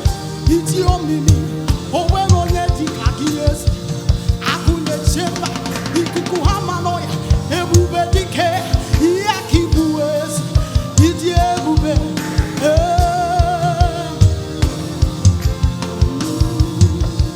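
Church choir singing a gospel song with a live band. The voices are sung with vibrato over a drum kit keeping a steady beat and a sustained bass line.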